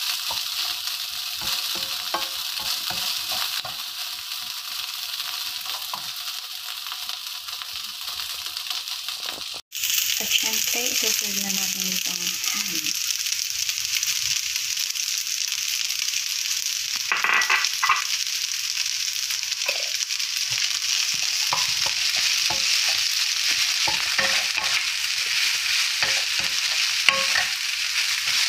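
Rice, diced carrot and ham sizzling in a non-stick frying pan while a wooden spatula stirs and scrapes, giving a steady hiss dotted with small taps. The sizzle cuts out for an instant about a third of the way in and comes back louder.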